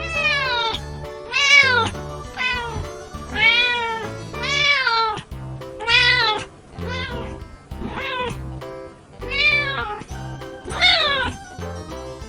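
A domestic cat meowing over and over, about ten meows, each rising then falling in pitch, over background music with a steady beat.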